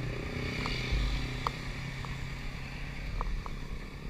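Motorcycle engine running steadily at low revs as the bike moves off, with a few light ticks over it.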